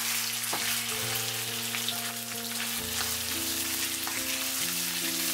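Raw chicken pieces sizzling steadily as they fry in hot caramelised sugar and oil in a wok, stirred with a wooden spatula.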